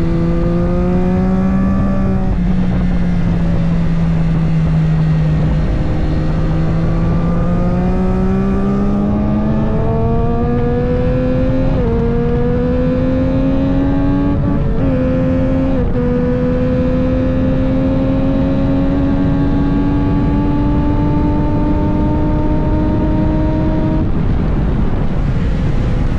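Triumph 765 Moto2 race bike's inline three-cylinder engine with a Spark exhaust, running hard on track, heard from the air intake. The engine note climbs through the revs with short dips in pitch about twelve, fifteen and sixteen seconds in as it shifts up, pulls in a long steady rise, then falls off as the throttle closes near the end.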